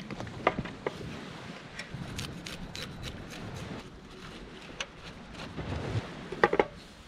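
Scaling and gutting a bartailed flathead on a wooden cutting board: scattered scrapes and clicks of the knife and hands working the fish, with a quick cluster of sharp knocks near the end.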